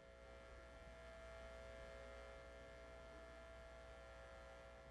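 Near silence: a faint, steady electrical hum with several steady tones.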